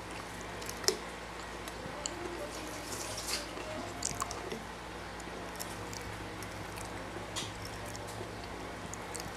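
Quiet eating sounds: faint chewing and a few small clicks at a plate, spread across several seconds, over a steady low hum.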